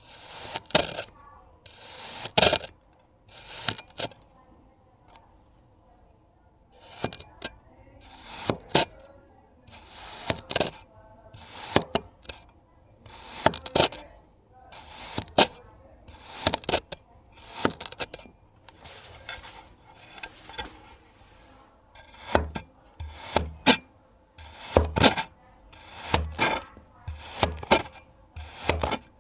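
Kinetic sand being cut with a blade: crisp, gritty crunching strokes about every second or two, with a pause of a couple of seconds after about four seconds in. In the last several seconds the strokes also land with a low thud.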